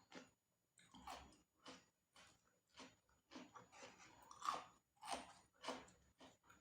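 Close-up chewing of crunchy food: a steady run of crisp crackles, just under two a second.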